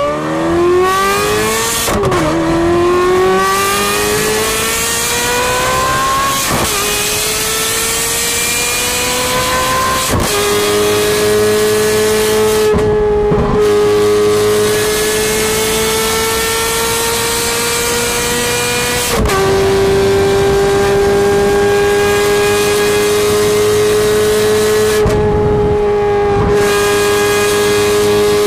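A Ferrari 430 Scuderia's straight-piped 4.3-litre V8 is pulling hard. The revs climb and drop sharply with quick upshifts about 2, 6, 10 and 19 seconds in, then hold steady and high at speed. Twice, near the middle and near the end, the note dips briefly as the throttle is lifted.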